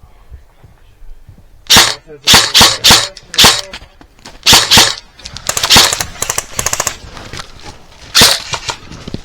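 Airsoft guns firing: after a quiet start, a string of sharp single shots begins about two seconds in, followed by rapid bursts of fire in the middle and another lone shot near the end.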